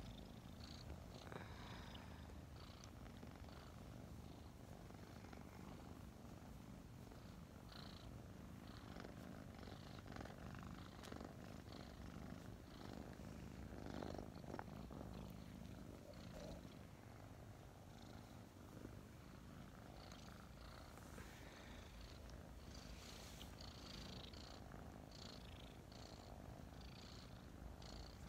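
Five-month-old kittens purring close to the microphone: a steady, soft, low rumble, with a few faint clicks.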